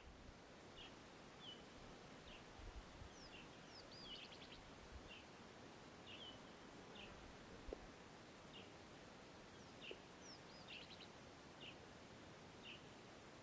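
A bird calling faintly: a short high chirp repeated about once a second, twice joined by a quick falling whistle and rapid trill, over a steady faint background hiss. A single soft click sounds about halfway through.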